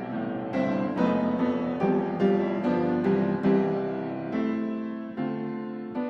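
Background piano music: single notes and chords struck one after another, each fading before the next.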